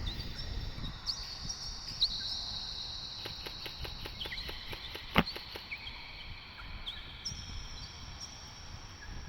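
Wind buffeting the microphone as a low rumble, with high thin chirps and held whistling tones over it. A quick run of ticks comes about three seconds in, and a single sharp click about five seconds in.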